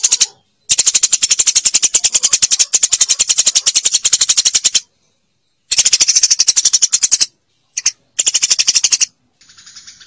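Eurasian tree sparrow giving its rapid chattering call, about ten sharp high notes a second, in several bursts. The longest burst lasts about four seconds, and the bursts are split by short breaks.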